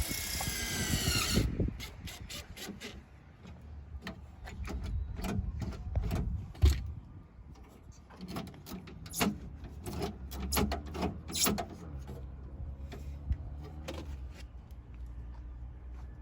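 Work inside a car door: an electric power-window motor whines for about the first second and a half and stops abruptly. After that come scattered clicks and knocks of tools and door parts, one louder knock near the middle.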